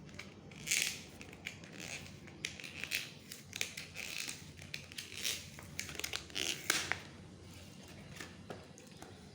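Credit-card packaging being handled and opened: a run of short crinkling, scratching and tearing noises of paper or plastic, which stops about seven seconds in.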